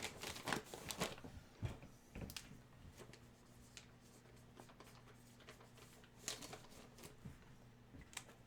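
Faint crinkling and rustling of plastic packaging being handled and opened, in scattered short bursts with quiet gaps between.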